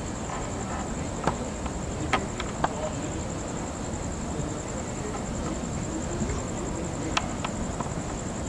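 Crickets trilling steadily in a high, fast, even pulse over low background noise, with a few faint ticks.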